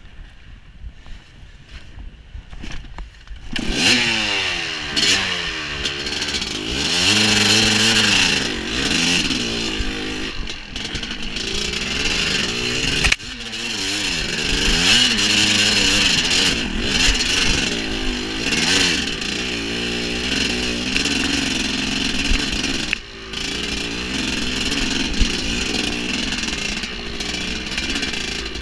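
Dirt bike engine being ridden hard over rough ground, quiet for the first few seconds, then loud from about three and a half seconds in, its pitch rising and falling again and again as the throttle is opened and closed. It dips briefly once, near the end.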